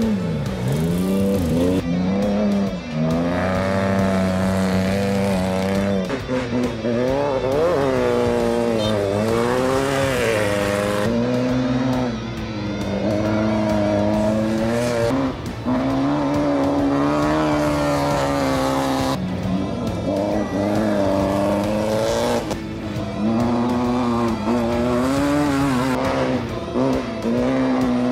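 Off-road race vehicles (a race truck, a tube-frame buggy and a UTV) pulling away on dirt, their engines revving up and down through the gears one after another. The engine sound changes abruptly every few seconds as one vehicle gives way to the next.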